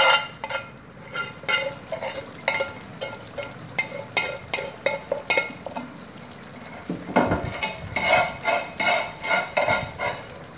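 Spatula scraping thick masala gravy out of a frying pan into a pan of chicken curry: a run of short scrapes and knocks of the spatula against the pans, about two a second in the last few seconds, over a light sizzle from the pan.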